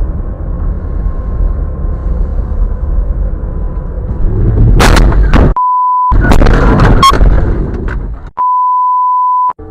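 Steady road and engine rumble inside a moving car, then a few loud sharp bangs just before five seconds in and a loud, noisy stretch. This is cut twice by a steady high censor bleep, once for about half a second and once for about a second near the end, blanking the original audio.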